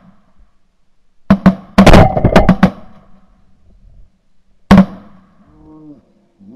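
Volley of shotgun blasts from several hunters: two shots about a second in, a rapid cluster of shots around two seconds, and a last shot near five seconds. Faint honking calls follow near the end.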